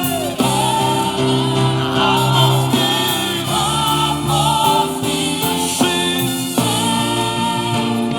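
Live gospel worship music: a choir and congregation singing held notes over a band's keyboard chords and bass.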